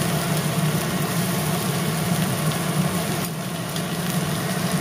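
A steady low motor hum with an even hiss over it, unchanging throughout.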